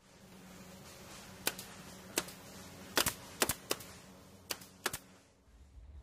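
About seven sharp, irregularly spaced clicks over a faint steady hum.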